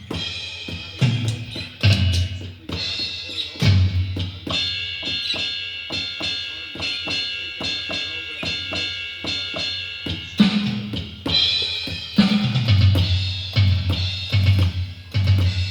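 Donner electronic drum kit being played: kick and snare hits, then from about four seconds in a run of evenly spaced ride-cymbal strokes ringing on for about six seconds, before the kick-and-snare groove returns. The ride pad sounds normally here, though it is the pad said to cut out.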